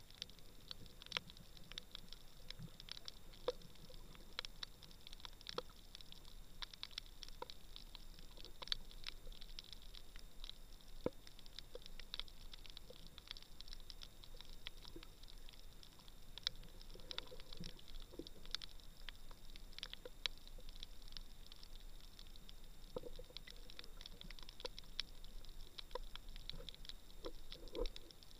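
Faint, irregular crackling clicks recorded underwater on a coral reef, several a second with no rhythm: the typical crackle of snapping shrimp.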